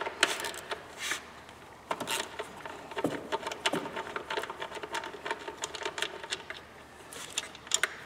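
Hand ratchet with a 5/16-inch socket clicking in short, irregular runs as the purge valve's two retaining bolts are backed out, with light metal taps between.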